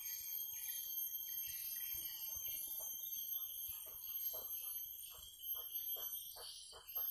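Steady high-pitched insect drone of a riverbank, joined about halfway through by a run of short calls repeated about twice a second.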